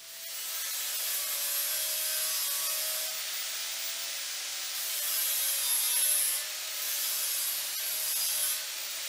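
Angle grinder with an abrasive disc grinding the edge of a steel sheet: a steady hissing grind, dipping briefly around the middle and again near the end.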